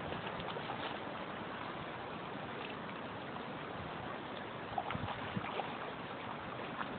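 Shallow river riffle running steadily over stones, with a few short splashes just under five seconds in from common nase fish thrashing at the surface in the shallows.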